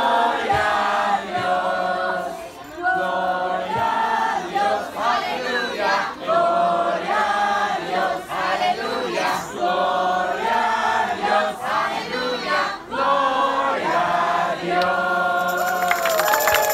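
A crowd of adults and children singing a song together in unison. Clapping starts near the end.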